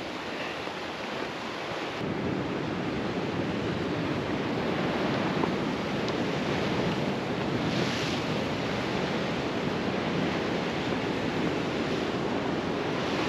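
Atlantic surf breaking and washing over a rocky shore, a steady rush that swells about two seconds in, with a harder wash about eight seconds in, and wind buffeting the microphone.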